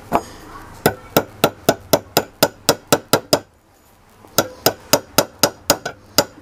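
Rapid light hammer taps, metal on metal, driving the impeller key into the keyway on a monoblock water pump's shaft: about four taps a second, with a pause of about a second midway.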